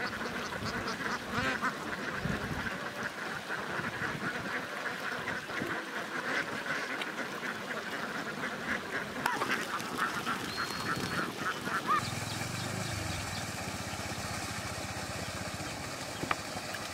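A large flock of domestic ducks quacking, many short calls overlapping in a continuous chatter. About twelve seconds in, this cuts off suddenly to a quieter, steady background with only the odd call.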